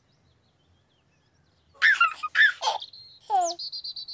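Near silence for about a second and a half, then a baby giggles in a few short high bursts. A falling swoop and a brief high warbling trill follow.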